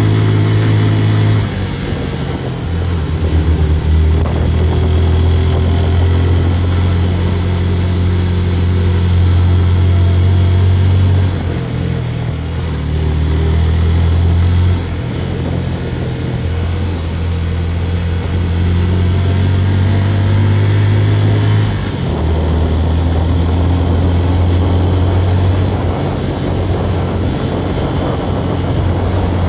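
Motorbike engine running steadily while riding, its low note shifting up and down several times as the throttle changes, over a steady rush of wind and road noise.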